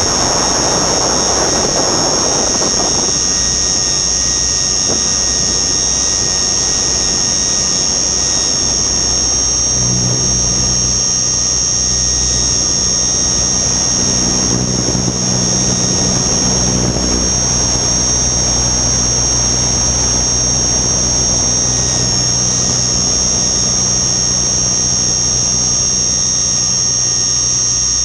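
Radio-controlled model helicopter in flight: a steady high-pitched whine from its drivetrain over the low drone of the rotor. There is a rush of wind noise in the first few seconds, and a lower humming tone joins in from about ten seconds in until near the end.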